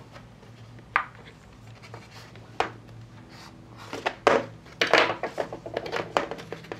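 Stiff clear plastic clamshell packaging being flexed and pried apart by hand: a sharp click about a second in and another a little later, then a run of crackling and clicking near the end.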